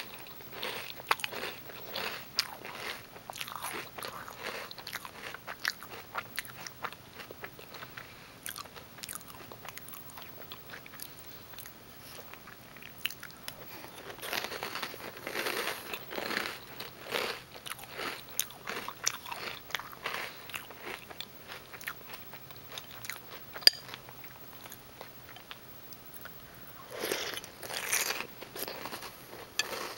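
Close-up chewing of Reese's Peanut Butter Puffs cereal: the puffs crunch and crackle in bouts, with quieter stretches of softer chewing in between. There is one sharp click about three-quarters of the way through.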